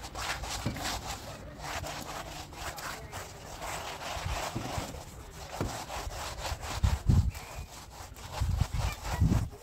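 Repeated rasping, rubbing strokes of a hand tool being worked over a wet white cement coat on a wall to smooth it. A few dull low thumps come in the second half.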